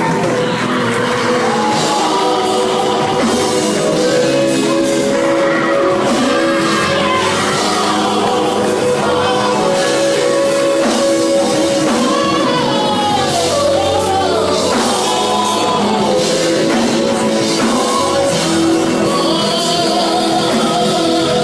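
Live gospel music: singers with wavering, gliding vocal lines over steady held chords and a band.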